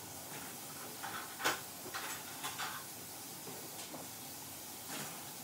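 Faint rustling and scraping of hands groping around inside a cardboard box, with a few soft knocks and crinkles, the sharpest about one and a half seconds in.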